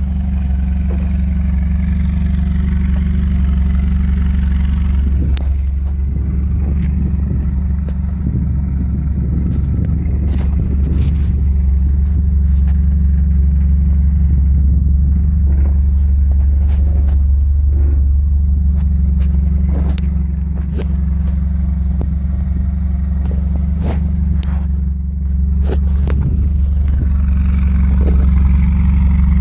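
Toyota 22R four-cylinder engine, desmogged and fed by a Weber 32/36 carburettor, idling steadily through a side-piped exhaust. It grows a little louder near the end, with a few light knocks partway through.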